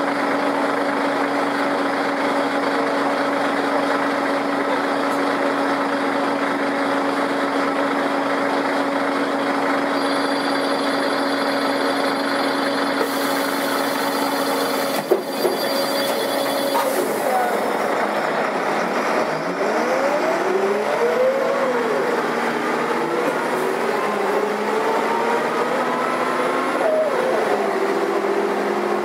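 Karosa B941.1934 articulated city bus engine, running at a steady pitch for about the first half, then rising and falling in pitch several times as the bus accelerates, with a sudden drop in pitch near the end as it shifts gear. A single click sounds about halfway through.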